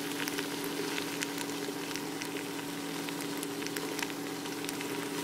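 Fettuccine Alfredo with broccoli sizzling in a pan as it is reheated, with scattered small crackling pops over a steady low hum.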